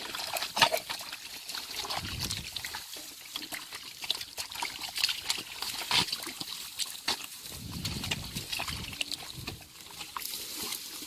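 Shallow water splashing and trickling, with irregular sharp splashes and knocks, from hands working in the water to grab a fish.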